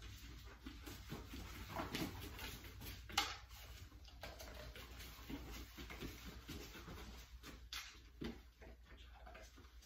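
A dog's paws and claws pattering on rubber foam floor mats as it runs, with scattered light knocks and one sharper click about three seconds in.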